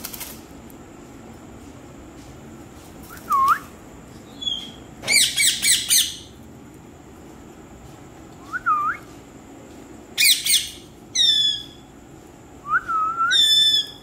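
Indian ringneck parakeets calling: short rising whistles mixed with harsh, loud squawks, the loudest squawks about five seconds in and again about ten seconds in.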